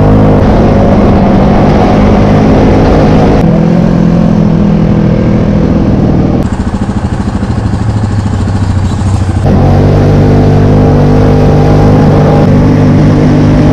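ATV engine running steadily while the quad rides along a gravel trail, heard from a camera on the machine. The engine note changes abruptly a few times; for a few seconds in the middle it is somewhat quieter, with a slower, rougher beat.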